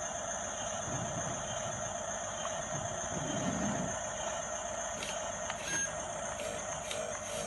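An RC model bulldozer's electric drive motors and gearboxes whining steadily as it tracks and pushes, with a few light clicks and knocks in the second half.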